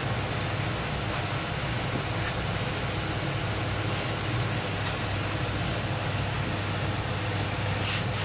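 Steady rushing roar and low hum of a commercial gas burner and kitchen ventilation under a small saucepan bubbling on the flame. Near the end comes a brief sharp hiss as seaweed goes into the hot pan and a flame flares up.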